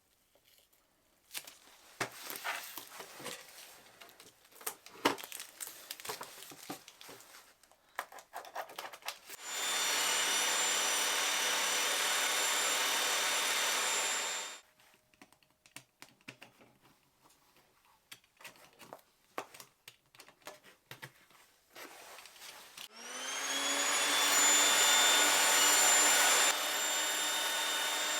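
Evolution Rage 5 table saw motor running steadily for about five seconds and stopping abruptly, then spinning up again and running near the end. Between the runs, scattered small clicks and handling knocks.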